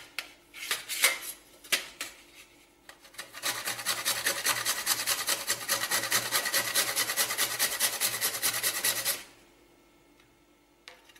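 Whole nutmeg grated on a stainless-steel box grater. A few scattered knocks as the grater is handled come first. Then a run of fast, even rasping strokes, several a second, lasts about six seconds and stops suddenly.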